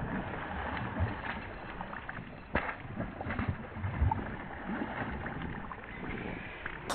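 Water of a river in high flow rushing and lapping, with scattered low thumps and a sharp click about two and a half seconds in.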